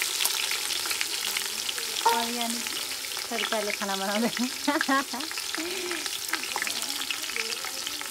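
Meat and sliced onions frying in hot oil in a steel pot, a steady dense sizzle with fine crackling.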